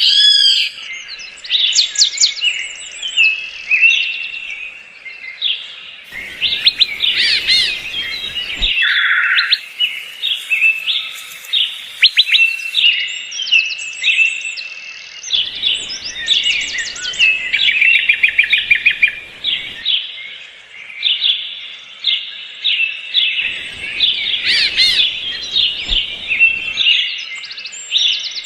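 Birds singing and chirping in a busy, continuous chorus of overlapping high chirps and trills. A low background hiss comes and goes abruptly three times.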